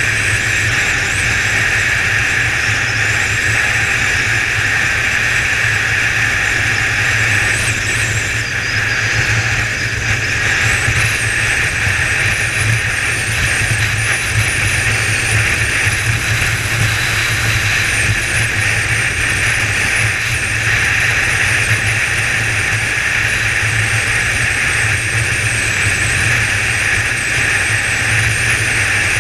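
Kawasaki ZZR 1400's inline-four engine running steadily at cruising speed, with wind rushing past, heard through a GoPro mounted on the motorcycle. The engine hum and wind noise hold level with no revving or gear changes.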